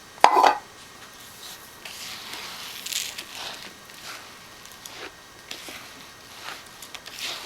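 Finch seed being poured into a bowl and stirred into a sticky flour and corn-syrup mix. A short loud burst comes near the start, then irregular soft crunching and scraping.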